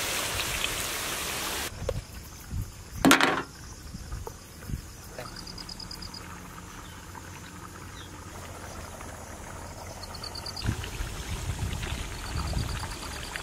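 Potato strips deep-frying in a kadai of hot oil: a loud, even sizzle that cuts off sharply after about a second and a half. A short loud clatter comes about three seconds in, and insects chirp in a few brief high trills over a quiet background.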